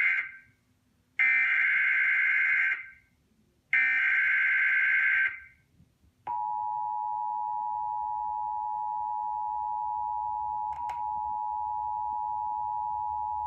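Emergency Alert System SAME header data bursts: a harsh two-tone modem warble repeated, the first burst ending just as the sound begins and two more following about a second apart. About six seconds in, the steady two-tone EAS attention signal begins, which opens a National Weather Service coastal flood warning.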